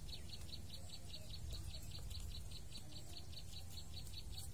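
A small animal chirping: short high chirps repeated evenly, about six a second, over a low steady rumble.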